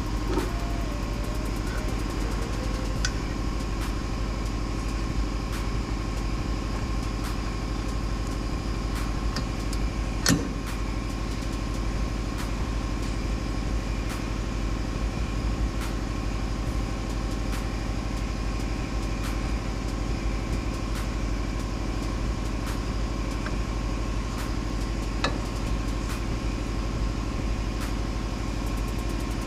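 Steady mechanical hum made of several constant tones that never change in pitch, broken by a few light clicks or knocks.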